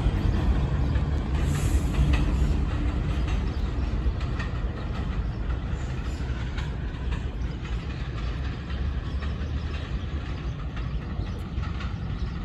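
New York City subway train pulling away along elevated track, a low rumble with wheel clicks over the rail joints, fading steadily as it recedes.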